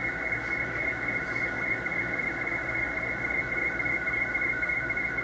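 Slow-scan TV (SSTV) signal received on the 20-metre amateur band through a shortwave receiver in upper sideband: a continuous stream of warbling tones over band noise. It is heard through the receiver's narrow audio filter, with nothing above the voice range.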